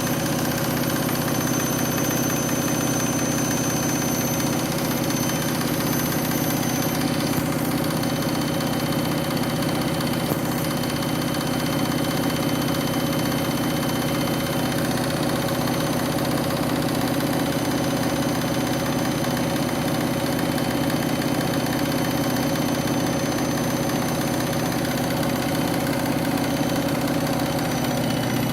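Washing machine on its final spin, the drum turning at steady high speed: a very noisy, even drone of motor and drum with several steady whining tones over it.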